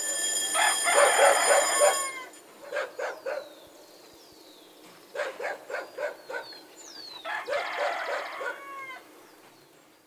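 Farmyard fowl calling in several bursts of quick repeated notes, a rooster among them, with small birds chirping higher up in a dawn chorus.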